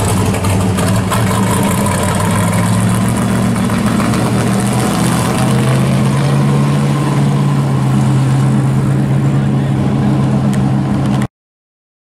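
Early-1960s Chevy II's engine running as the car pulls away and drives off, a steady low exhaust note; it cuts off suddenly near the end.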